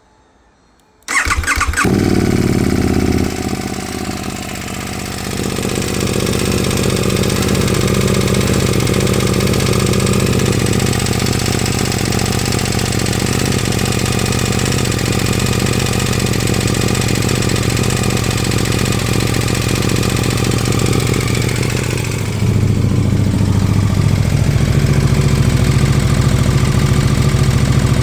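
KTM 1290 Super Duke R V-twin started about a second in, catching quickly and settling into a steady idle with the rattling the owner is showing. Its note steps up slightly and gets a little louder near the end.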